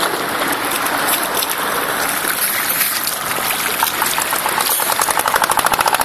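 Shallow sea water splashing and gurgling around a camera held at and just below the surface, as a child paddles in a swim ring. A rapid, even fluttering pulse comes in near the end.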